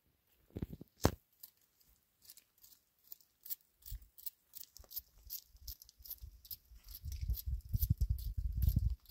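Dry tree leaves and twigs rustling and crackling close by, a series of light crisp ticks, with a sharp click about a second in and a low rumble in the last two seconds.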